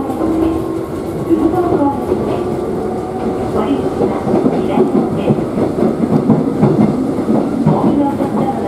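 Kōnan Railway Kōnan Line electric train running, heard from inside the passenger car: a steady rumble of wheels on the rails, with a faint steady tone at the start.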